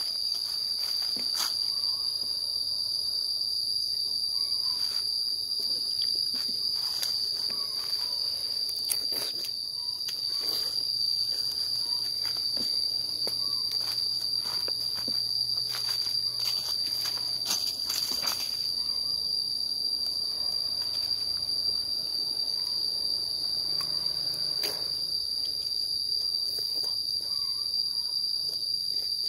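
Steady, high-pitched insect chorus, one continuous trill, with scattered brief clicks, most of them between about 15 and 18 seconds in.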